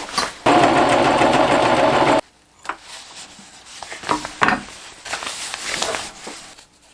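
Sewing machine running a short line of stitches through a Gore-TEX jacket hem, starting about half a second in and stopping after under two seconds, followed by quieter clicks and rustles of the fabric being handled.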